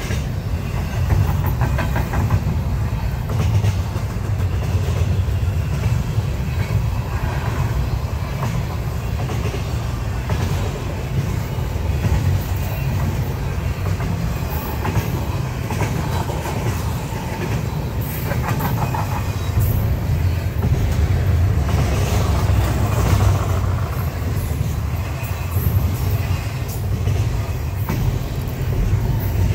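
Freight train tank cars rolling past: a steady low rumble of steel wheels on the rails, with intermittent clicking as the wheel sets cross the rail joints.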